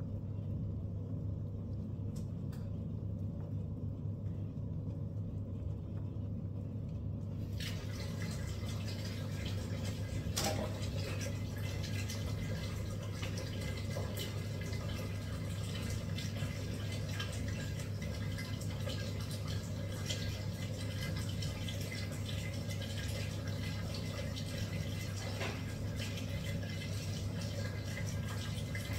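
A steady low hum, joined about seven seconds in by a soft, water-like hiss with a few faint ticks.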